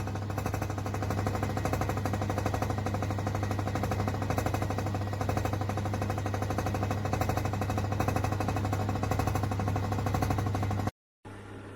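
H.Koenig HF340 compressor ice cream maker running while churning gelato: a steady low hum with a fast, even rattling pulse. It cuts out abruptly near the end, then comes back quieter.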